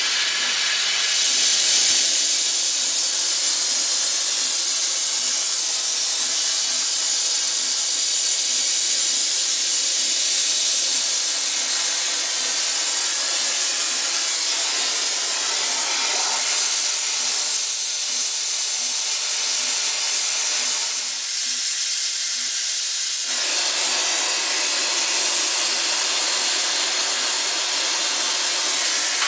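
Oxy-acetylene torch flame from a Harris torch handle with a number 5 Victor-style welding tip, hissing steadily while its gas valves are adjusted, going from a long feathery flame to a sharp neutral flame. The hiss briefly thins about 21 seconds in, then steadies.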